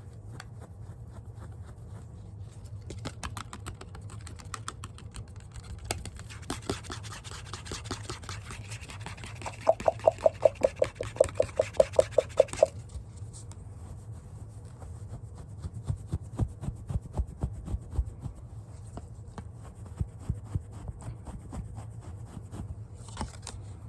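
Scratching on a Papa Smurf toy: light, quick strokes, then a run of about a dozen louder, pitched strokes in the middle, then lighter strokes again. A faint steady low hum sits underneath.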